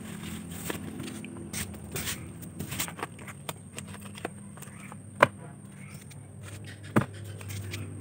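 Light clicks, knocks and scrapes of small objects being handled and set down on a tabletop, with two sharper clicks about five and seven seconds in, over a steady low hum.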